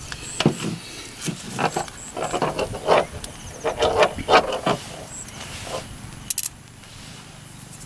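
Irregular clicks, taps and light knocks of small objects being handled on a tabletop, thickest in the first five seconds and thinning out near the end.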